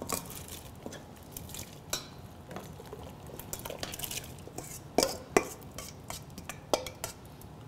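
Stainless steel mixing bowl clinking and scraping against the rim of a stainless steel pot as garnish is tipped in, with scattered light clinks and two sharp metal knocks about five seconds in.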